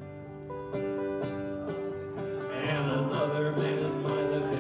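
Live acoustic guitar strummed about twice a second, with a second guitar playing along: an instrumental break between sung lines.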